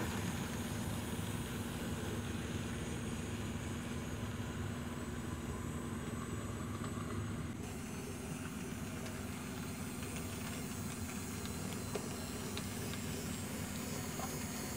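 Steady hum of an N scale Bachmann 2-8-0 model steam locomotive running, its small electric motor and wheels on the track, with a few faint ticks from the wheels and ore cars.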